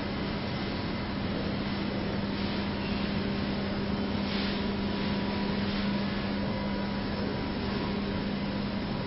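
Steady machine hum with a low droning tone over an even hiss, unchanging throughout.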